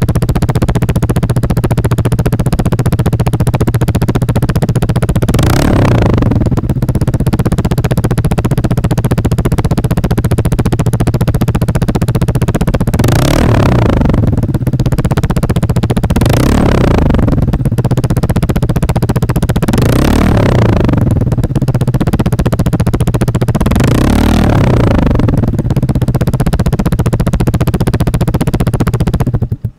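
Vespa Sprint 150 i-get scooter's single-cylinder three-valve engine idling through an SC Project GP Tech carbon slip-on exhaust, blipped five times: each rev rises and falls back to idle.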